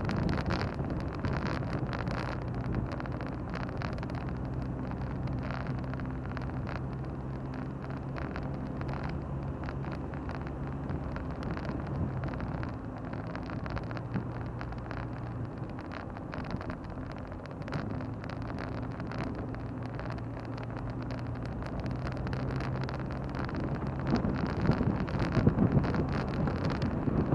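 Car on the move: engine running steadily under a continuous hum of tyre and road noise. The engine note fades for a few seconds around the middle and comes back, and louder, gusty wind noise comes in near the end.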